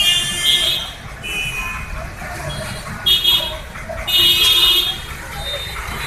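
Street traffic: a steady low rumble with about five short, high-pitched vehicle horn toots, the longest about four seconds in.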